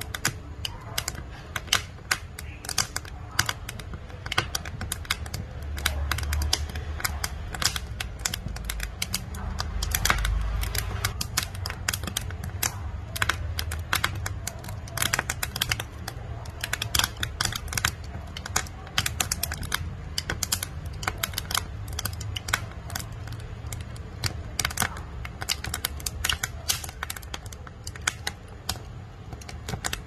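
Wood fire crackling in a wood-burning stove's firebox: sawn wooden boards burning, with dense, irregular snaps and pops over a low rumble of flame that grows louder about a third of the way in.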